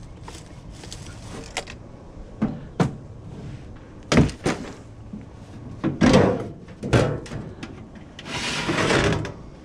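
Clunks, knocks and clatter of a microwave oven's parts being handled while it is taken apart by hand, with a stretch of scraping about eight seconds in.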